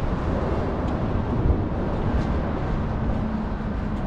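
Steady low outdoor rumble with a noisy hiss and no distinct events.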